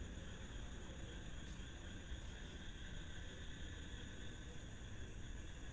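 Faint steady background noise in a pause of the voice-over, with a regular high-pitched pulsing of about four a second.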